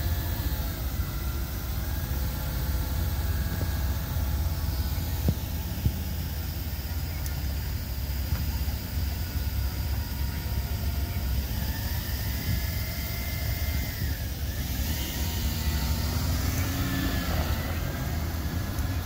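Several Suzuki Jimny 4x4s drive slowly past in a line on gravel, their engines running at low speed. A steady low rumble sits underneath throughout.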